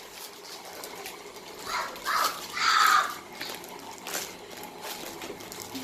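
A child screaming from another room: three shrill cries about two seconds in, the last one the longest and loudest.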